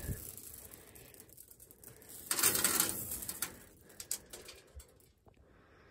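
Handful of wheat seed being sifted over a grain drill's seed box, kernels trickling and rustling through the fingers, with a louder rush of pouring grain about two seconds in and light scattered clicks of falling kernels afterwards.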